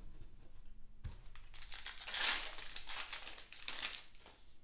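Foil wrapper of a 2020 Chronicles football card pack crinkling and tearing as it is ripped open by hand. The crackly rustling starts about a second and a half in and is loudest around the middle.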